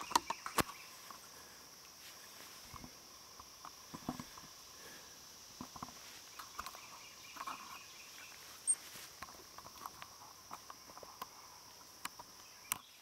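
Camera handling noise: scattered clicks, knocks and rustles as the camera rubs against camouflage clothing and a tree-stand safety-harness strap, the sharpest knocks near the start and near the end. Under it a steady high-pitched insect drone.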